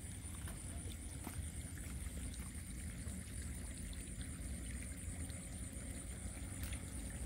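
Night outdoor ambience: a continuous high-pitched insect trill over a low, steady rumble of water and movement.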